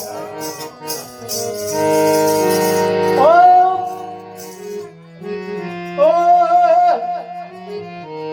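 Live devotional bhajan music between sung lines: long held notes under a melody line that comes in about three seconds in and again near six seconds, with high jingling percussion in the first second or so.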